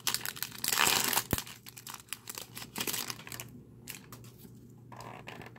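Foil wrapper of a Pokémon TCG Lost Thunder booster pack crinkling as it is torn open, loudest in the first second or so. It fades to fainter rustling after about three and a half seconds.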